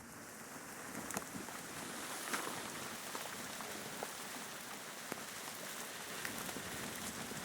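Fire burning a computer hard drive: a steady crackling hiss with scattered sharp pops.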